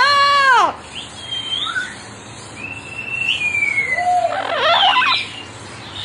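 Double yellow-headed Amazon parrot vocalising. It opens with a loud, drawn-out "aaloooo" that rises and falls in pitch, then gives short sliding whistles and one longer falling whistle, and ends with a harsher squawk-like call near the end.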